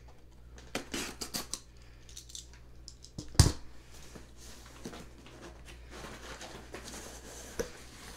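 Packing tape being cut and a cardboard box opened by hand: a quick run of snips and scrapes, one sharp knock about three and a half seconds in, then softer rustling of the box.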